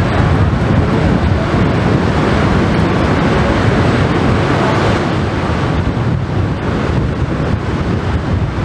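Push boat's propeller wash churning and its diesel engine running steadily, with wind buffeting the microphone.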